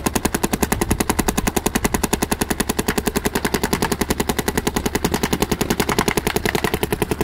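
Dye M2 electronic paintball marker firing a rapid, unbroken string of compressed-air shots, evenly spaced like an automatic weapon.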